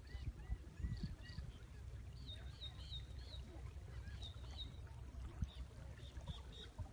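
Birds calling in a series of short, chirping notes, over a low rumble.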